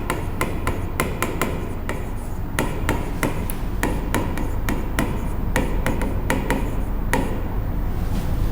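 Writing on a board: a run of sharp, irregular taps and clicks, a few a second, thinning out near the end, over a steady low hum.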